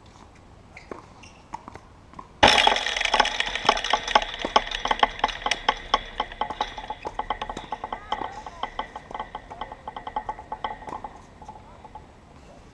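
Handling noise right at the camera's microphone. A sudden loud knock a couple of seconds in is followed by a dense run of close rustling and small clicks, which dies away over about eight seconds.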